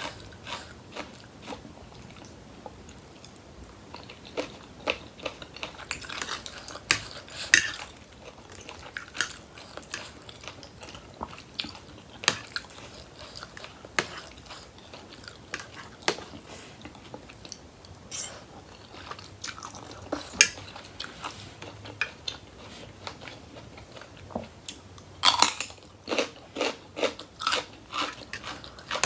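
Close-up chewing and crunching of crisp raw vegetables and a spicy rice-noodle seafood salad, with scattered sharp bites and a run of rapid crunchy chewing near the end.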